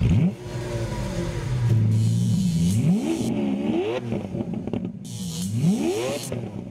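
Hyundai Ioniq 5 N's synthesized engine sound revving, the pitch climbing and dropping back sharply as if through gear changes, twice, after an abrupt loud start.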